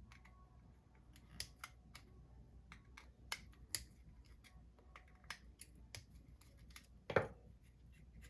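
Scattered small clicks and taps of a hand tool and metal parts as a Penn 320 GT2 fishing reel is taken apart, with one louder knock about seven seconds in.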